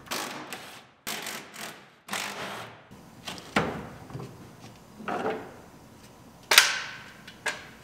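Short clatters, scrapes and knocks of metal parts and tools as a bracket is unbolted from a pickup's bed rail and the rail is lifted off the bed side. The loudest is a single sharp knock about six and a half seconds in.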